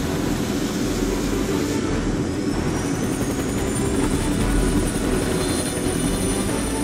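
Helicopter running: a steady low rotor and engine drone, with a high whine that rises from about two and a half seconds in.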